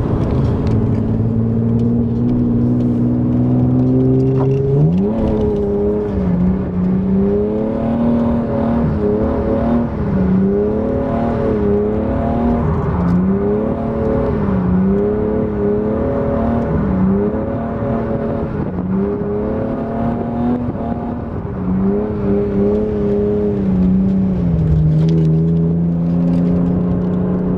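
BMW E36 320i's straight-six engine heard from inside the cabin, running at steady low revs, then revving up sharply about five seconds in. The revs then rise and fall again and again as the throttle is worked through a drift, settling lower near the end.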